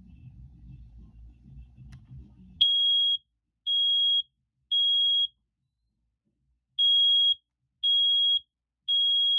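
BRK battery smoke alarm (model FG250) sounding on its test button: loud, high-pitched beeps in the temporal-three pattern, three beeps about a second apart, a pause, then three more. The beeping starts about two and a half seconds in.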